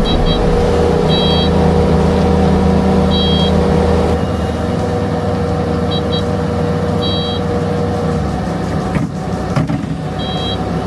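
Skid steer engine running, with its backup alarm giving short high beeps at uneven intervals as the machine reverses. The engine eases about four seconds in, and two sharp knocks come near the end.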